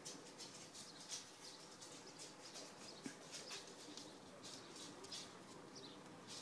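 Faint rustling and scratching of young Cavalier King Charles spaniel puppies moving about on a fabric dog bed, with a few faint high squeaks.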